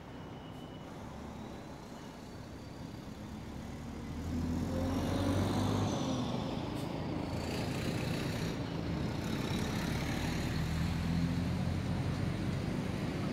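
A motor vehicle's engine running, a low steady rumble that grows louder about four seconds in and stays loud.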